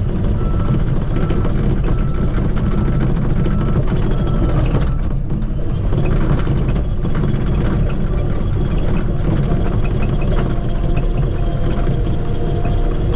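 Shantui bulldozer's diesel engine running steadily under load, with its reversing alarm beeping at an even pace for the first four seconds or so, then stopping as the machine stops backing up.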